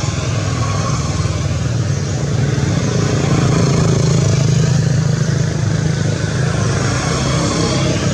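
An engine running steadily with a low, fast pulsing drone, growing a little louder about halfway through.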